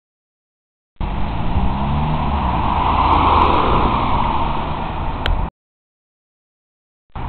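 A car driving past close by: the engine and tyre noise swells to a peak about three seconds in and then fades, while the engine note rises and falls. The audio drops out completely for the first second and again for about a second and a half near the end.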